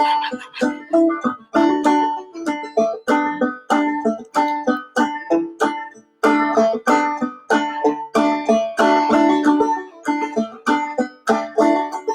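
Clawhammer banjo playing an instrumental break between verses of an old-time blues song: a steady run of brightly ringing plucked notes with a driving rhythm, pausing for an instant about halfway through.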